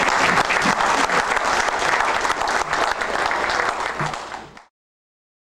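Audience applauding: dense, steady clapping that thins a little and then cuts off abruptly about four and a half seconds in.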